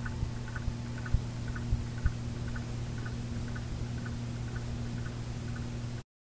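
A low steady hum with a soft, regular ticking about twice a second and a few low thumps about a second in, cutting off abruptly into silence near the end.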